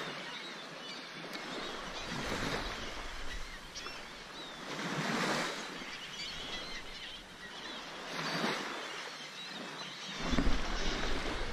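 Small waves washing up and draining back on a pebble beach at the water's edge, the wash swelling and fading about every three seconds.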